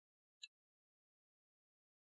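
Near silence, with one faint short tick about half a second in.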